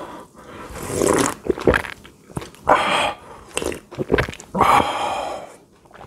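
Close-miked eating sounds: chewing, with sips slurped from a bowl of dongchimi, the cold radish water kimchi broth, in irregular bursts about one, three and five seconds in.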